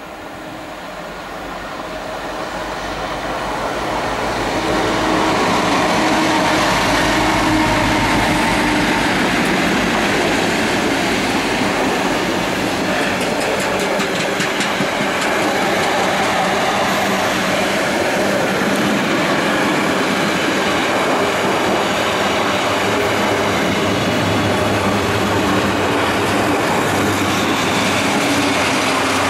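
Colas Rail Class 60 diesel locomotive hauling a train of track maintenance machines: the sound grows over the first five seconds as the locomotive approaches and passes, then the wagons and machines rumble past steadily, wheels clattering over the rail joints.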